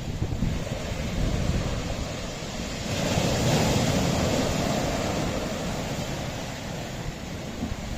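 Sea waves washing against a rocky shore; one wave surges about three seconds in and slowly draws back. Wind buffets the microphone.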